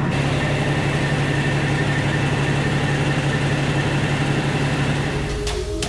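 Heavy water truck's diesel engine idling steadily. Music comes in near the end.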